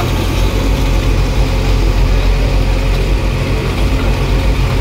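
JCB 3DX backhoe loader's diesel engine running steadily as the machine drives slowly along a road, heard from inside its cab.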